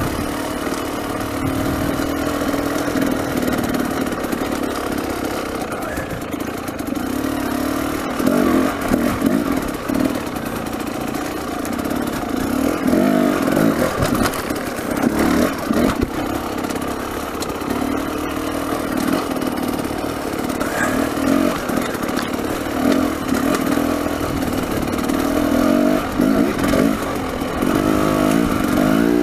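Dirt bike engine running as it is ridden over loose rock and gravel, its note rising and falling with throttle in several bursts, mixed with the clatter of the bike over the stones.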